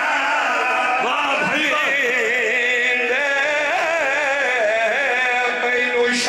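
Men chanting a mourning recitation in a long, wavering sung melody with strong vibrato, amplified through a PA system. There is a short sharp click near the end.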